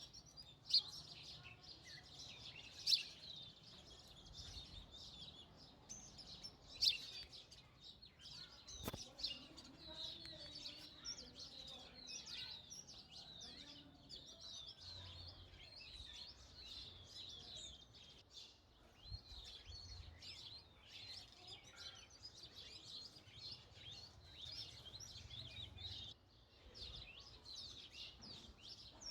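A flock of house sparrows chirping: many short chirps overlapping without pause, with a few louder, sharper chirps in the first several seconds.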